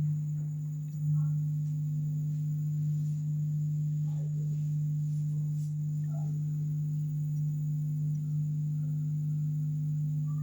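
8-inch speaker on a TPA3118 amplifier board sounding a steady low hum-like tone that holds one pitch without change.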